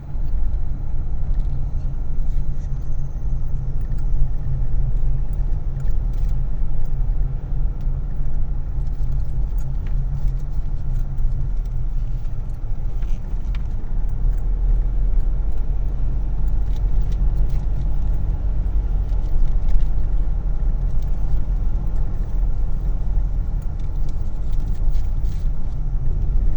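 Steady low rumble of a car on the move, with faint scattered rattles.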